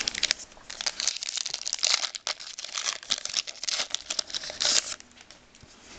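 Foil wrapper of a trading card pack crinkling and tearing as it is opened: a dense run of sharp crackles that dies away about five seconds in.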